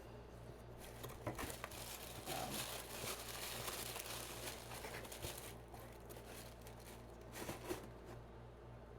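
Packaging crinkling and rustling as it is handled and opened, loudest in the first half, with a few short sharp crackles near the end.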